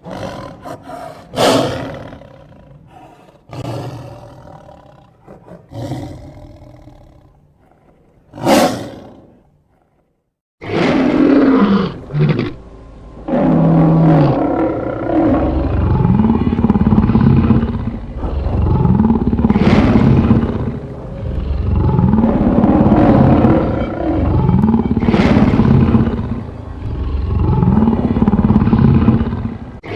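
Edited lion-like roar and growl sound effects. A few separate snarls and growls with short gaps come first. After a brief silence about ten seconds in, a continuous run of deep, layered roars follows, each rising and falling in pitch and repeating every two to three seconds.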